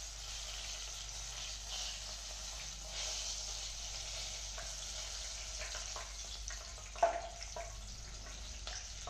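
Two whole green chillies deep-frying in hot oil in a kadhai: a steady sizzle. About seven seconds in there is one sharp knock.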